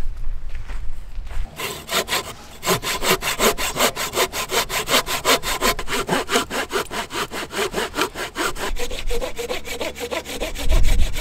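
Hand saw cutting through wood with quick, even back-and-forth strokes, starting about a second and a half in and stopping near the end, followed by a dull low thump.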